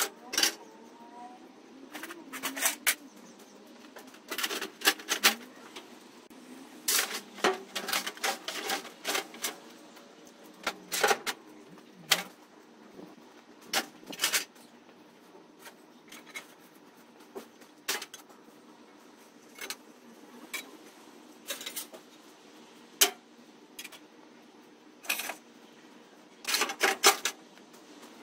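Irregular sharp metal clanks and clinks, some single and some in quick clusters, as pieces of scrap metal are handled and dropped onto other metal.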